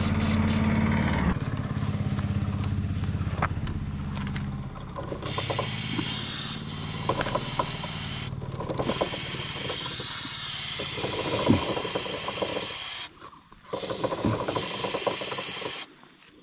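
Aerosol lubricant spray hissing in three long bursts with short breaks, sprayed onto a motorcycle's side-stand pivot, with light clicks of the metal stand between. An engine runs in the first few seconds and fades before the spraying starts.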